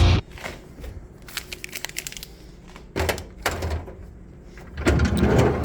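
Scattered clicks, knocks and light rattles of a vending machine being handled as it is restocked, with packs placed into its spirals and its panels moved.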